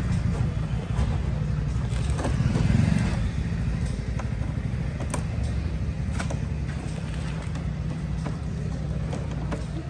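Steady low rumble of a motor vehicle engine running nearby, with a few scattered sharp clicks of a small tool prying at the scooter's plastic body panels.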